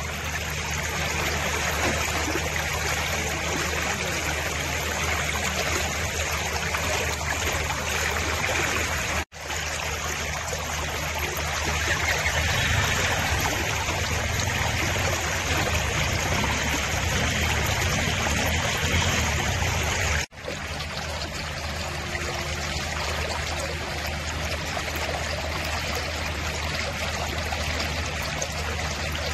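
Floodwater flowing across a flooded road, a steady rush of moving water that cuts out for an instant twice.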